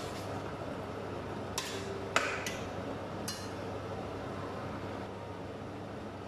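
A metal utensil knocking against a stainless steel pot while stirring raw chicken pieces: three short ringing clinks about a second apart, the middle one the loudest, over a steady low hum.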